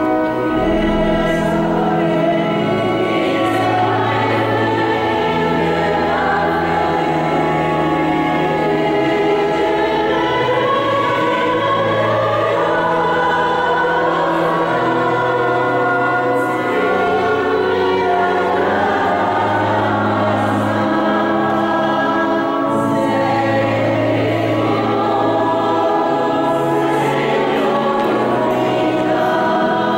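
Choir singing a sacred hymn, with long held low notes underneath and changing melodic lines above, the sound carrying in a large, resonant church.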